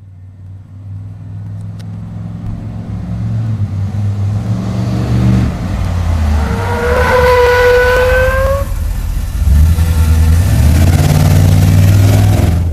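A large vehicle engine running and revving, loud and building. A high squeal, rising slightly, cuts in for about two seconds in the middle.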